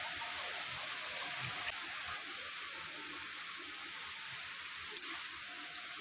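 Steady hiss, broken about five seconds in by a single short, sharp, high-pitched chirp from a small cage bird, the loudest sound.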